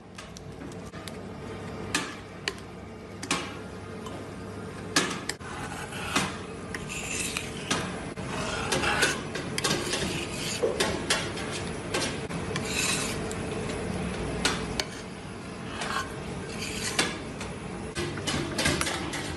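Metal utensils scraping and rasping at ice cream and its tray, with repeated sharp knocks scattered throughout over a steady low hum.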